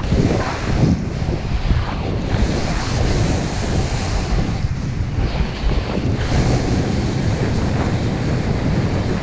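Wind buffeting the microphone during a fast downhill snowboard run, with the board hissing and scraping over the snow, swelling and easing as it turns.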